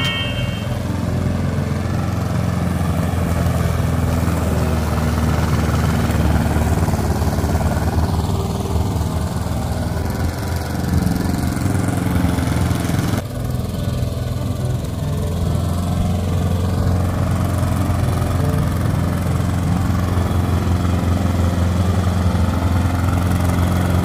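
Gas-powered walk-behind push lawn mower running steadily while cutting grass, its single-cylinder engine giving an even low drone, with a brief break in the sound about halfway through.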